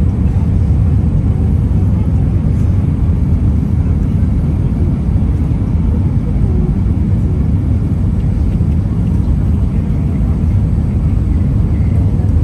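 Steady low rumble inside the passenger cabin of an Airbus A320-200: engine and airflow noise.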